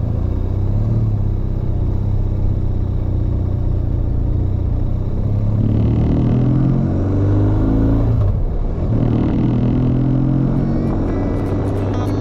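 Motorcycle engine under way, its pitch climbing as it accelerates, a short break about eight seconds in, then climbing again: a gear change.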